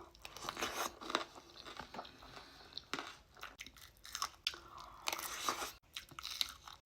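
A person biting and chewing crunchy chatpate, the spicy puffed-rice snack, with irregular crisp crunches.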